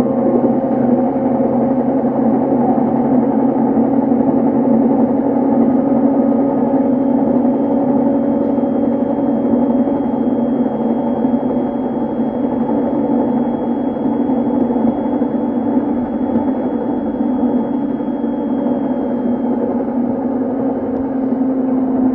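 Running noise inside an E233 series electric train's motor car at speed: a steady rumble of wheels on rail with a constant low drone. A faint high whine comes in about ten seconds in and fades out a few seconds before the end.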